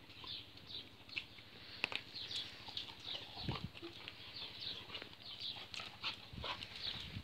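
Hellenic Hound (Greek scent hound) making dog sounds as it moves about on concrete, over a run of many short high ticks, with low sounds about three and a half and six and a half seconds in.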